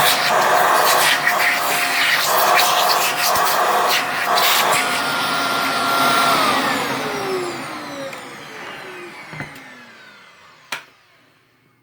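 Bagless cyclonic vacuum cleaner running at full power, sucking up dry debris with scattered crackles and clicks, then switched off about six seconds in, its motor whine falling in pitch as it winds down. A sharp click comes near the end.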